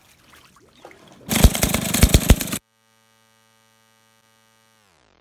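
Two-stroke chainsaw running at full throttle for about a second, cut off abruptly. It is followed by a steady synthesized tone that slides down in pitch near the end.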